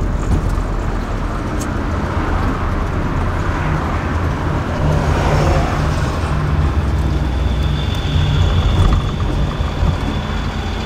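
Small-block Chevy V8 in a 1962 Cadillac Sedan DeVille running steadily as the car rolls slowly, heard from inside the cabin with road and traffic noise.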